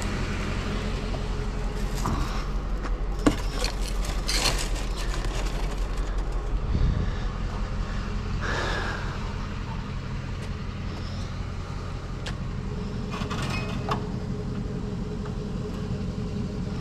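Vehicle engine idling as a steady low hum, with scattered clicks and knocks over it, including one sharp knock about three seconds in and a short scrape near the middle.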